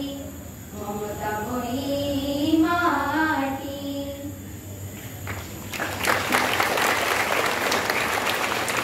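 A group of schoolchildren singing the closing phrase of an Odia song together into microphones, ending about four seconds in; about a second later applause breaks out and continues.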